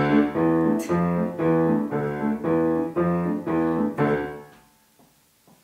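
Piano introduction: a chord struck about twice a second, nine times in a row, the last one fading out about four and a half seconds in.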